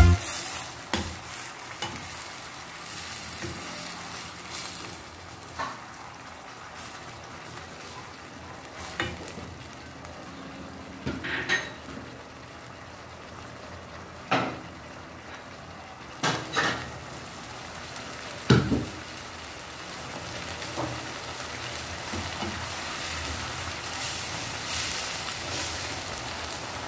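Spinach, tuna and vegetables sizzling in a frying pan, a steady hiss that grows a little louder near the end. A wooden spatula stirs the food, knocking and scraping against the pan several times.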